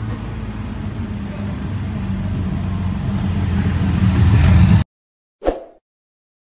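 Street traffic noise with a motor vehicle engine humming and growing louder, cut off abruptly about five seconds in, followed by one short swish.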